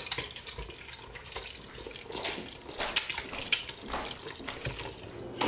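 A spoon stirring a wet ground chicken mixture in a large stainless steel stock pot: wet squelching and sloshing with irregular scrapes and clicks against the metal.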